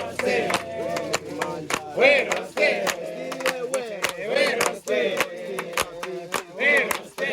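A group of people singing a call-and-response style chant, with sharp rhythmic knocks about three times a second keeping time.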